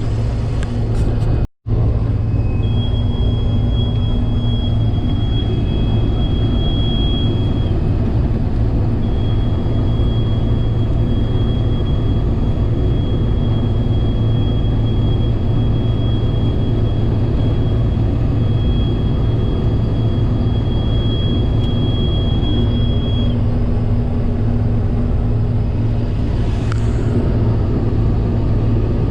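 Combine harvester running steadily while cutting wheat: a continuous low engine and machinery drone with a thin, steady high whine over it for most of the stretch. The sound drops out completely for a moment about a second and a half in.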